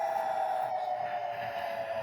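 Outdoor warning siren winding down: one tone slowly falling in pitch and getting gradually quieter.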